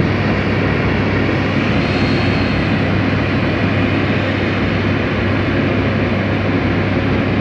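Steady aircraft engine noise on an airport apron: a constant roar over a low hum, unchanging throughout.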